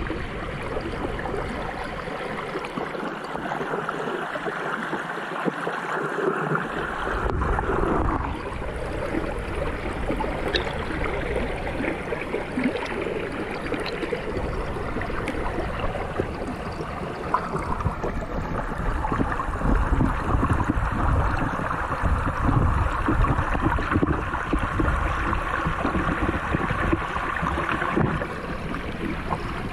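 Steady wash of a small stream's flowing water, heard underwater through a GoPro's housing. A low rumble in it drops away about two seconds in and comes back about seven seconds in.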